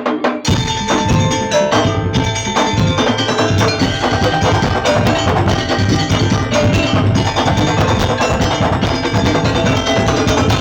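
Madurese daul (tongtong) percussion ensemble playing a fast, dense rhythm of struck drums with pitched ringing tones over them; the low drums come in about half a second in.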